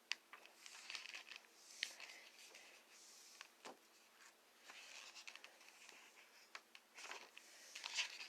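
Near silence with faint, scattered rustles and small clicks of something being handled.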